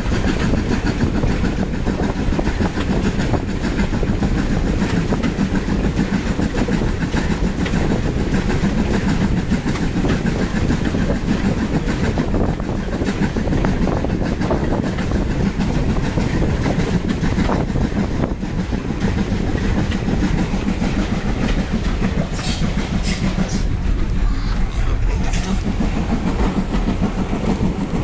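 Passenger train running along the line, heard from a carriage window: a steady rumble with the clickety-clack of the coach wheels over the rail joints, and a few short high squeals from the wheels near the end.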